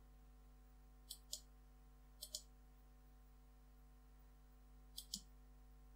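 Faint computer mouse clicks over near silence: three quick pairs, about a second in, a little over two seconds in, and about five seconds in.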